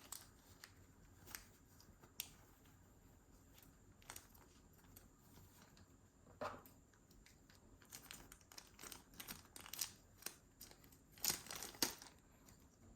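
Paper packaging being handled: faint, intermittent rustling and crinkling with small clicks, busier in the second half.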